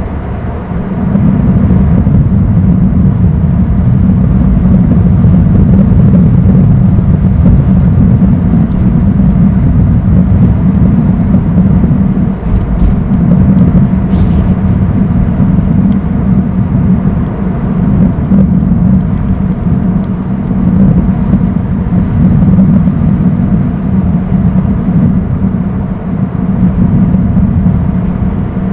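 Loud, steady low rumble of wind buffeting an outdoor nest-camera microphone, with no break.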